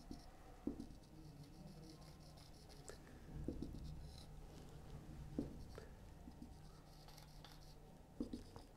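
Marker pen drawing lines on a whiteboard: faint scratchy strokes and a few short taps.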